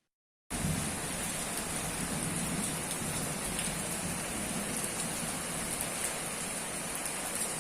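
Steady hiss of heavy rain and water, cutting in abruptly about half a second in.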